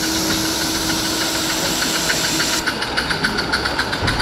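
Live steam model locomotive running, its exhaust beating in a quick, even rhythm, with a steady steam hiss over it that stops about two and a half seconds in.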